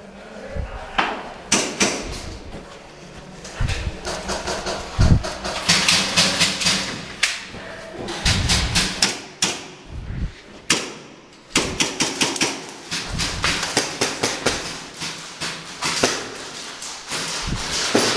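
Irregular sharp clicks and knocks, coming in quick runs at times, with a few low thuds, from players moving and shooting in an airsoft game.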